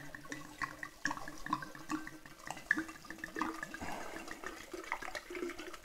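Red wine pouring out of a 750 ml bottle into a pitcher, a rapid run of short bubbly gurgles as the bottle empties.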